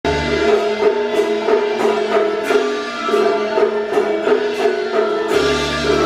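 Taiwanese opera accompaniment music: pitched melody instruments playing over a steady beat of sharp percussive clicks, about three a second.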